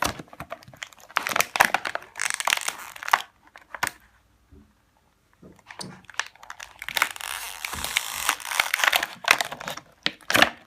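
Plastic toy packaging crinkling and crackling as a small toy piece is worked out of it by hand, in two spells with a quiet pause of about two seconds in the middle.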